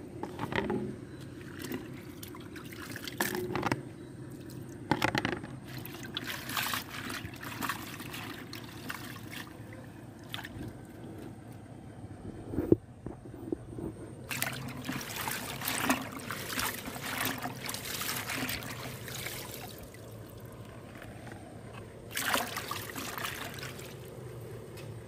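Water splashing and sloshing in a basin in irregular spurts as kangkong (water spinach) leaves are swished by hand to wash them, with one sharp knock about halfway through.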